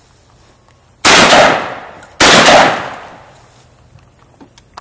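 Shotgun fired twice at a thrown clay target, two shots about a second apart, each with a long echoing tail.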